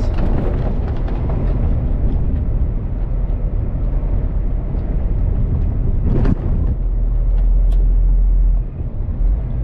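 Long-haul truck on the move at speed: steady low engine and road rumble, with a brief knock about six seconds in and a deeper rumble that swells around seven seconds and dips for a moment near the end.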